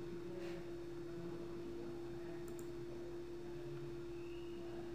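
A steady electrical hum, one even tone with faint room noise beneath it, on a quiet recording.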